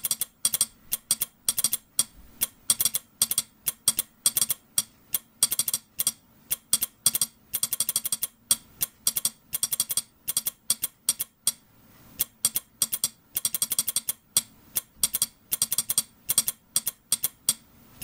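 Vintage Air Ministry sounder relay (type A) clicking out Morse code: its armature snaps against its stops in quick, irregular groups of sharp clicks separated by short gaps, following the dots and dashes being keyed.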